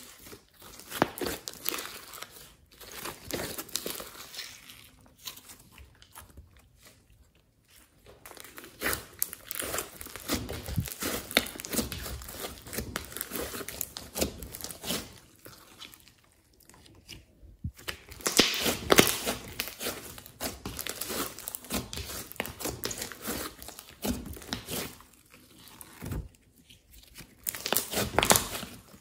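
Hands kneading and squeezing thick, glossy slime mixed with clay and glitter, making sticky, wet crackling clicks in bursts with short pauses. It is loudest about two-thirds of the way through and again near the end.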